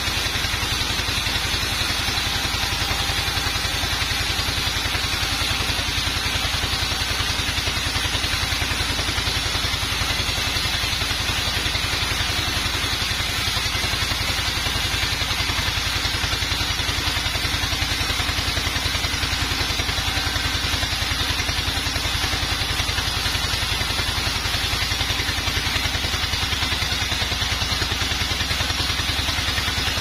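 Band sawmill running steadily as its blade cuts lengthwise through a teak log, a constant mechanical drone of the saw drive and blade with a light clatter.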